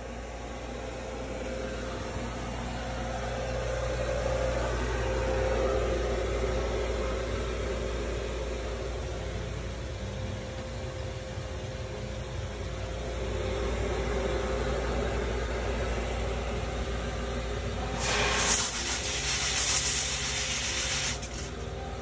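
Koi pond filtration system running: a steady mechanical hum with water churning through the aerated moving bed biological filter. About 18 seconds in, a loud hissing spray lasts about three seconds: the self-cleaning rotating drum filter's spray bar washing its screen.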